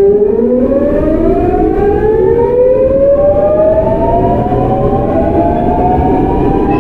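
GEC Alsthom GTO-VVVF traction inverter of a Seoul Line 8 8000-series train whining as the train accelerates. A steady whine turns at the start into several stacked tones that glide steadily upward in pitch, over rumbling rail noise.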